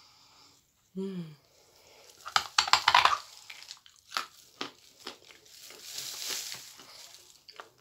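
A lump of white edible chalk bitten with a loud crunch about two and a half seconds in, then chewed with a run of crackling crunches. A plastic bag crinkles near the end.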